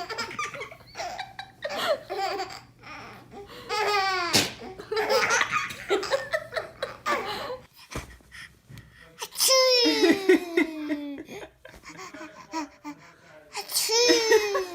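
A baby laughing, with other laughter around it, in several high-pitched bursts that fall in pitch. The biggest come about four seconds in, around ten seconds in and near the end.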